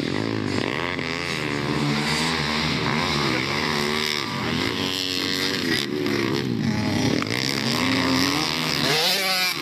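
Pit bike engines racing, revving hard with the pitch dipping and climbing again several times as the riders shift and take the corners.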